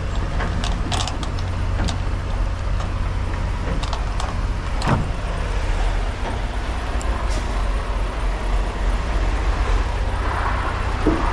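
Diesel truck engine idling with a steady low hum, with a few light clicks and knocks over it in the first half.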